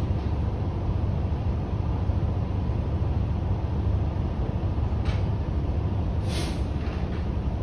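Steady low rumble of a semi-truck's diesel engine idling, with a faint click about five seconds in and a short hiss a little later.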